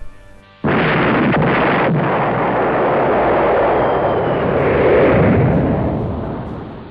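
Continuous din of battle, artillery and gunfire massed together. It starts abruptly about half a second in, with a few sharp reports early, swells around five seconds and fades away toward the end.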